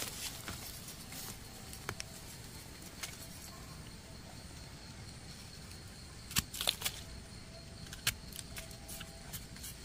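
Small knife scraping soil off the stem base of a freshly picked red Russula mushroom: faint, scattered scrapes and small clicks. A cluster of sharper clicks comes about six and a half seconds in.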